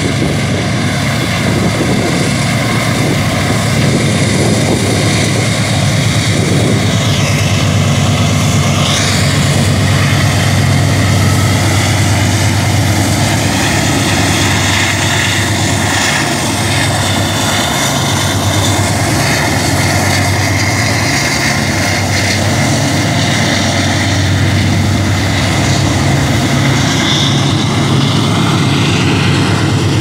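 Diesel-electric freight locomotives passing close below, their engines a steady, deep drone.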